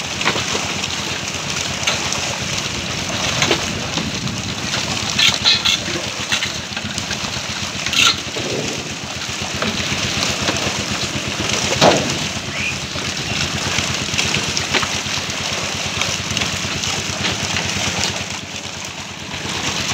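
Water splashing as a dense mass of fish thrashes in a shallow net enclosure, a steady rain-like patter. A few louder splashes stand out from fish being handled and dropped into metal trays.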